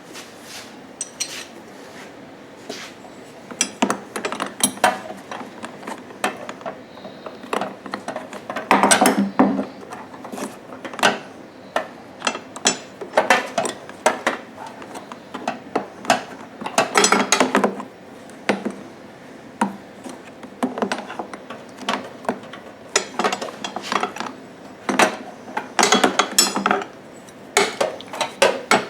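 Metal clinking, clicking and scraping of a wrench being fitted and worked on a threaded fuel fitting, in irregular bursts of sharp clatter.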